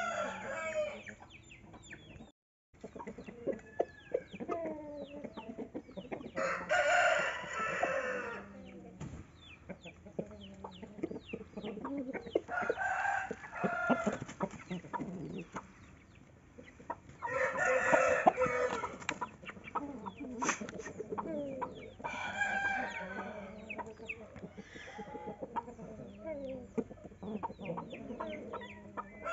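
Game roosters crowing about four times, each crow lasting a second or two, with softer clucks and short calls from the flock in between.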